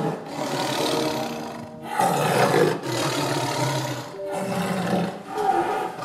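Male lion roaring: a series of about five calls, each about a second long, with short breaks between them.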